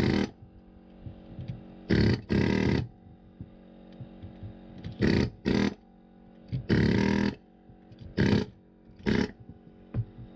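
Handheld power tool running in short bursts as its tip is driven into a motor's copper windings: eight brief rattling blasts, each under a second, spread irregularly across the stretch, with faint background music between them.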